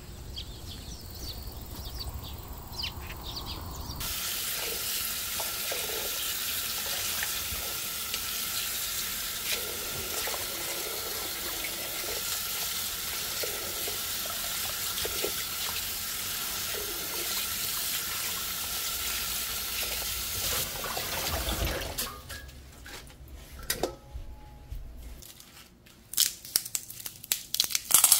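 Kitchen tap running steadily into a steel bowl in the sink while hands swish and rinse lettuce leaves; the water stops about three quarters of the way through. Near the end, dry bean pods crackle as they are split open by hand.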